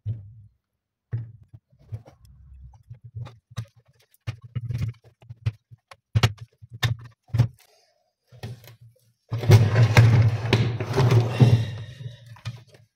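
Metal winch parts clinking and knocking as they are handled on a workbench. About nine seconds in comes a few seconds of loud, continuous scraping and rattling as the winch's motor housing is worked onto the drum body to seat its gear.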